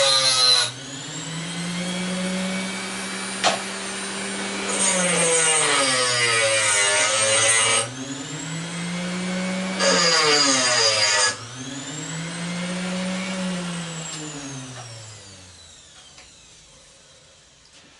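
Angle grinder grinding on brass faucet pieces to test what metal they are: three loud stretches of grinding, the motor's pitch dropping under load and climbing back between them. Near the end it is switched off and winds down.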